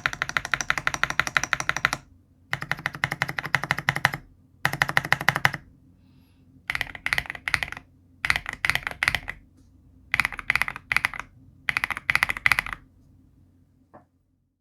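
Typing on a Cidoo ABM066 Alice-layout mechanical keyboard: seven bursts of rapid key clicks with short pauses between them, the last four with more spaced-out strokes.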